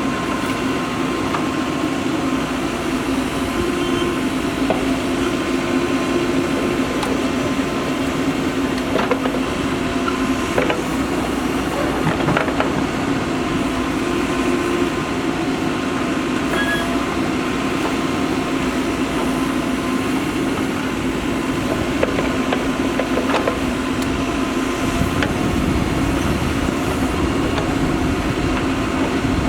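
Mahindra Earthmaster SX backhoe loader's diesel engine running steadily under work, with a few short knocks, and a deeper rumble coming in near the end.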